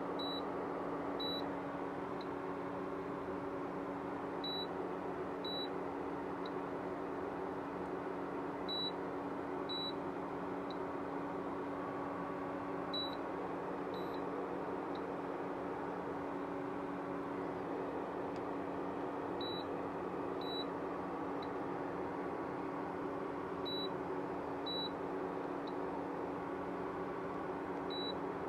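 Induction cooktop running with a steady hum, its cooling fan and coil going continuously, while short high beeps sound in pairs about a second apart, repeating every four to five seconds.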